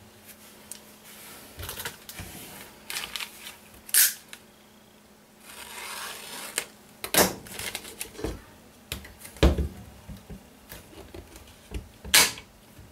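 Scattered sharp clicks and clacks of rifle flip-up sights being removed from and fitted onto the rail, with a brief scraping hiss about halfway through.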